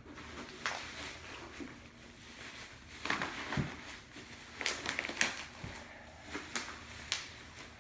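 Package wrapping crinkling and rustling as it is handled and pulled at by hand, in scattered irregular crackles with a cluster of sharper ones around the middle.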